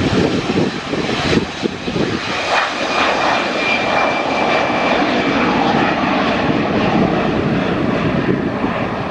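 Twin jet engines of an Airbus A330 airliner at takeoff power as it climbs out after liftoff: a loud, steady jet noise, with a thin high whine about three seconds in.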